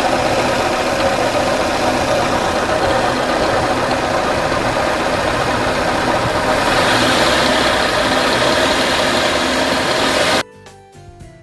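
Engine bay of a 25-year-old Honda Accord (K9) running with a loud, steady abnormal noise from its failing air-conditioning compressor, whose coil had overheated and melted. The noise turns brighter about two-thirds of the way through, then cuts off abruptly to music about a second before the end.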